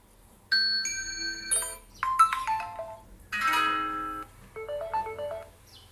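Short SMS alert ringtones played back one after another from an Android ringtone app: four brief melodic tones, each about a second long, with short gaps between them.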